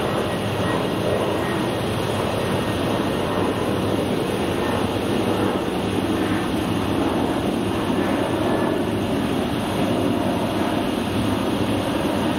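Freight train rolling past, a steady rumble with no breaks.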